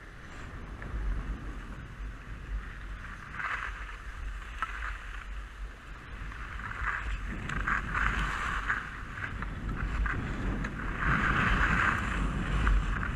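Skis scraping and carving on packed, groomed snow during downhill turns, in surges a few seconds apart that grow louder toward the end. Wind rumbles on the microphone underneath.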